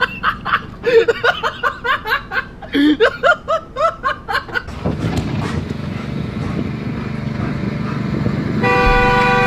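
A car horn gives one long, steady honk near the end. Before it come several seconds of quick short bursts of a voice, then a steady rumbling noise.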